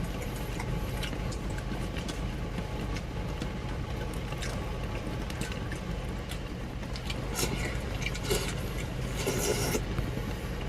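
Heavy wind and rain on a small camper van, heard from inside: a steady rush with scattered taps and patters, which grow busier near the end.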